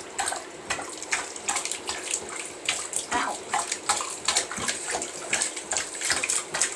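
Shallow bathwater splashing and sloshing in a bathtub as a small dog moves about in it, in short irregular splashes several times a second.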